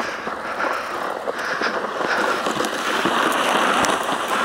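Steady scraping hiss of a plastic sled and feet moving over packed, icy snow, with a few faint crunches.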